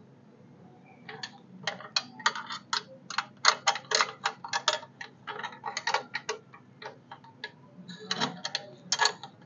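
Irregular run of sharp metallic clicks, several a second, from 10 mm spanners working a nut tight on a motorcycle mud-mat bracket. The clicks start about a second in and pause briefly near the end.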